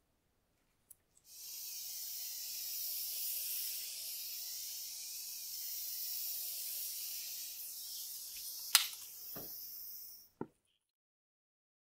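Gas heat gun hissing steadily as its flame is passed over freshly poured epoxy resin to burst air bubbles, starting a second in and cutting off near the end. A sharp click sounds shortly before it stops.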